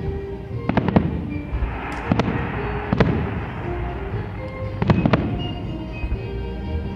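Aerial fireworks shells bursting overhead: a series of sharp booms, two close together about a second in, then single ones about two and three seconds in and a close pair about five seconds in, with a crackling hiss after the second burst. Music plays underneath.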